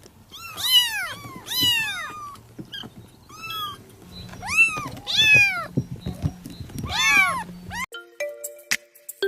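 A domestic cat meowing over and over, about six drawn-out rising-and-falling meows with quieter ones between. Near the end it cuts off and a short electronic jingle of steady notes starts.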